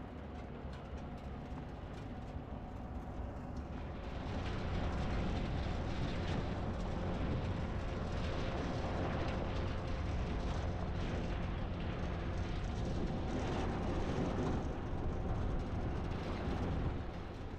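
Rushing river water, a steady roar that grows louder about four seconds in and drops back near the end.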